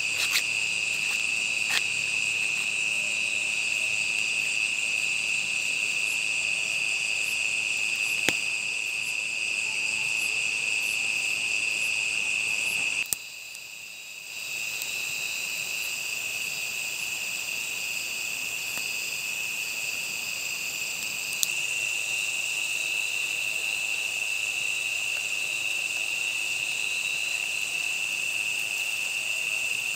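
Steady chorus of night insects, chiefly crickets, as a continuous high-pitched trill, with a few sharp clicks scattered through it. The chorus drops out for about a second and a half around the middle, then resumes.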